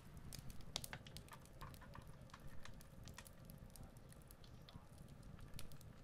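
Faint outdoor ambience: scattered small, irregular clicks and ticks over a low rumble.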